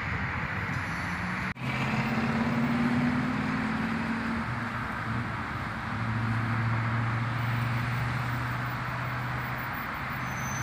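Road traffic with a motor vehicle's engine running steadily as a low hum over a wash of road noise. The sound drops out for a moment about a second and a half in.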